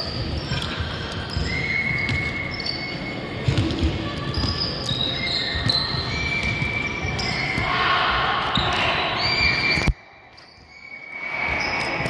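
Basketballs bouncing on a hardwood gym floor, with sneakers squeaking in short high chirps and voices echoing around a large hall. The sound drops away suddenly about ten seconds in and comes back a second or so later.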